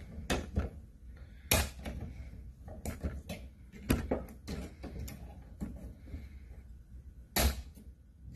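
Sharp clicks and small knocks of a cutting tool biting and scoring at a plastic graphics-card fan blade, spaced irregularly, the loudest about a second and a half in, about four seconds in and near the end.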